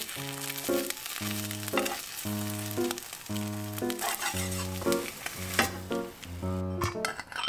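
An egg frying in a nonstick pan, sizzling as a metal spatula turns it; the sizzle dies away about two thirds of the way through once the egg is lifted out. Background music with a steady run of notes plays all along.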